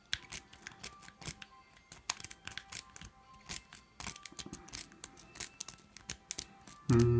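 A steel S-rake raked in and out of a cheap 50 mm Mitsutomo pin-tumbler padlock: irregular sharp metallic clicks and ticks as it rattles over the pins, without opening the lock. Faint music plays underneath, and there is a short low hum near the end.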